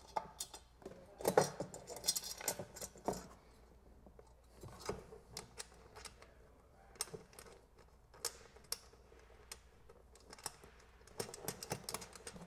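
Scattered light clicks and metallic clinks of small nuts, bolts and washers being handled and fitted through a metal power pole plate onto a plastic mounting plate. Most of the taps come in the first three seconds and again near the end.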